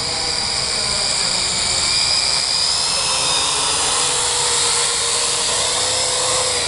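Small HM1315 quadcopter's four motors and propellers whining steadily as it flies low and comes down to land.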